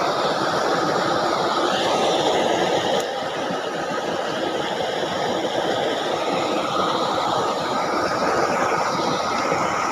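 Steady rushing of water flowing along a shallow, muddy ditch.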